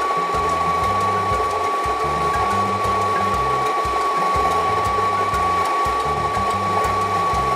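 Electric espresso grinder running steadily, grinding coffee beans straight into a portafilter, with a constant high whine over the grinding noise.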